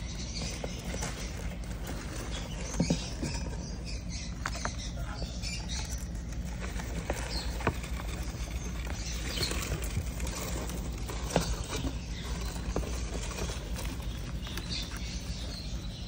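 Lovebird chicks giving faint high squeaks and chirps over a steady low hum, with a few sharp clicks.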